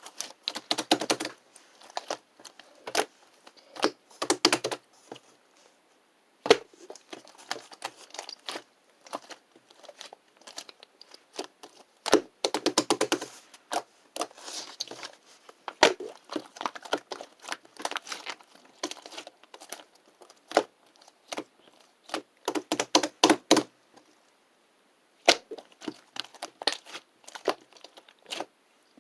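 Slime being squished and poked by hand, making clusters of sharp clicking pops and crackles with short pauses between them.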